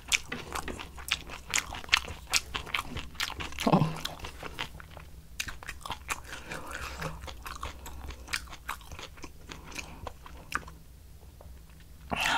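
Close-up chewing of spicy kimchi: crisp, wet crunches from the mouth, coming thick and fast for the first few seconds and then thinning out as the chewing slows. A short hummed "mm" about four seconds in.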